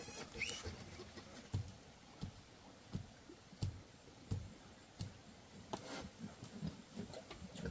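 Pigs grunting low and short, half a dozen times at uneven intervals, with light clicking and shuffling around them.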